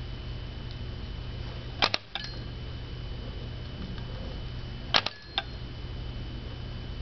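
Skinner box lever being pressed by a rat: two sharp mechanical clicks about three seconds apart, each followed a moment later by a fainter click, over a steady low hum.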